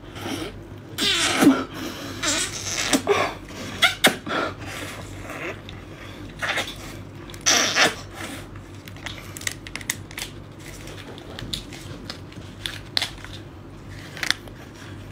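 Wet sucking and slurping at a giant prawn's head as the roe is sucked out of the shell, with small clicks. It comes in several loud bursts in the first half, the longest about seven and a half seconds in, then grows quieter.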